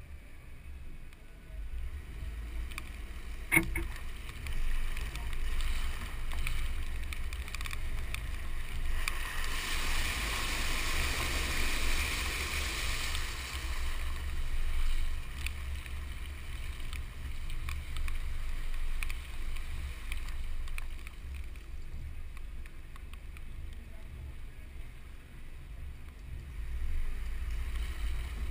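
Wind rumble on a fender-mounted camera and the Ford F-150's front tyre hissing through water on wet pavement, the spray swelling louder for a few seconds near the middle. A single sharp click about three and a half seconds in.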